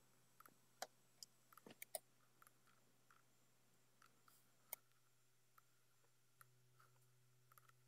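Near silence with faint, scattered clicks of a computer keyboard and mouse, several close together about two seconds in and one sharper click near the middle, over a faint steady low hum.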